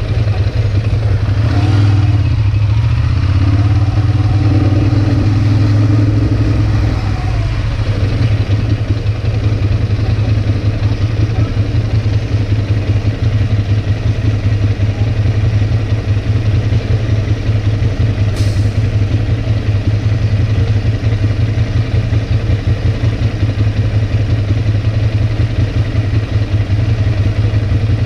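Ducati Monster's V-twin engine running as the bike rolls to a stop, its pitch sliding down over the first several seconds, then idling with a fast, uneven pulse.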